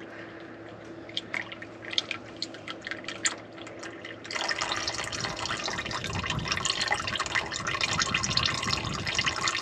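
Engine oil draining from the sump of a 1953 Dodge M43 military ambulance in a thin stream into a drain pan. At first it is scattered drips; about four seconds in it becomes a louder, steady trickle.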